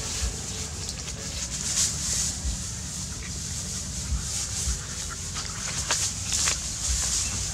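Two dogs play-wrestling in a pile of dry straw: rustling and scuffling, with a few short sharp clicks about six seconds in, over a steady low rumble and hiss.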